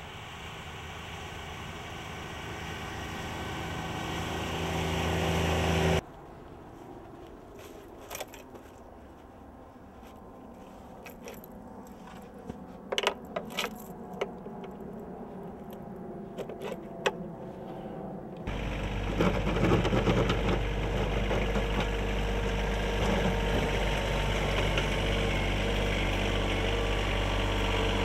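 Sub-compact tractor engine running, growing louder up to a sudden cut about six seconds in. A quieter stretch follows with scattered sharp metal clicks and clinks as the steel snow blade is handled. From about two-thirds through, a tractor engine runs loud and steady again.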